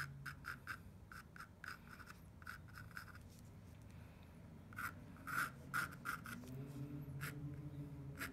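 HB graphite sketch pencil scratching short strokes across a textured canvas panel. The strokes come about three a second, pause for about a second and a half near the middle, then pick up again with a few louder strokes.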